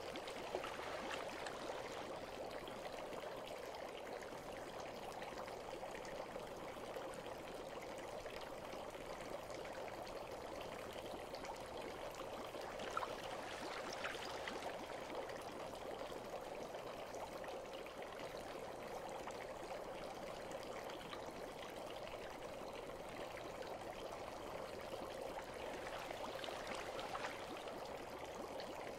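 Steady, gentle flowing water: a bath water ambience.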